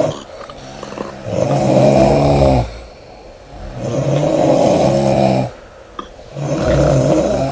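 A woman snoring loudly in her sleep: three long snores about two and a half seconds apart, with quieter stretches between.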